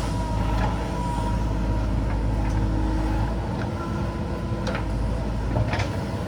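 JCB backhoe loader's diesel engine running steadily under work, with a few short sharp knocks near the end.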